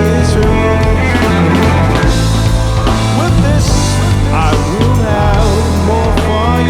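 Live band music: bass, drums, keyboards and guitar playing together, with bending melodic lines over a steady bass.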